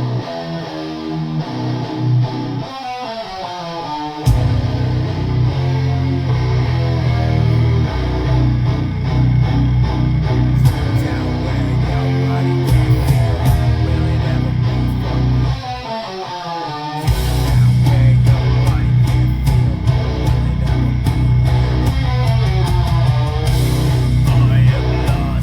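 Heavy metal song: electric guitar riffing over bass guitar. The full heavy low end comes in about four seconds in, drops out briefly with a falling guitar slide about two-thirds of the way through, then returns.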